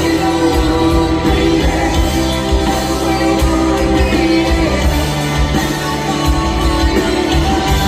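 A live band playing rock music with electric guitar, drums and a singer; the music runs steadily at full volume.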